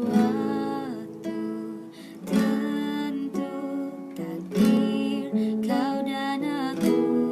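Acoustic guitar strummed, with a voice singing along.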